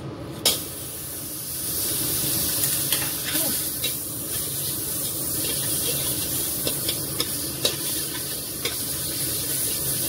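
Margarine sizzling as it melts in a hot wok, a steady hiss that swells about a second and a half in. A metal ladle scrapes and taps the pan, with one sharp knock about half a second in.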